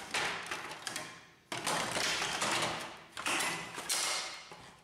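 Plastic top cover of a Canon MP-series inkjet printer being fitted back onto the printer's plastic chassis: clattering, clicks and scraping of plastic on plastic, in three bursts.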